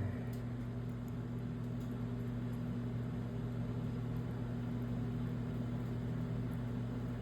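Steady low electrical hum, with a few faint small clicks from hand work on the pump parts.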